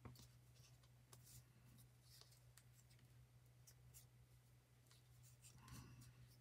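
Near silence: faint rustles and light ticks of paper and fabric pieces being handled and pressed down by fingers, over a low steady hum.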